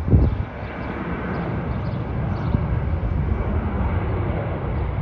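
Boeing 737-900's jet engines running at takeoff power during the takeoff roll: a steady rumble. A brief low thump comes just after the start.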